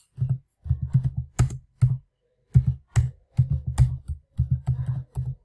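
Typing on a computer keyboard: a run of quick keystrokes in clusters with brief pauses, stopping near the end.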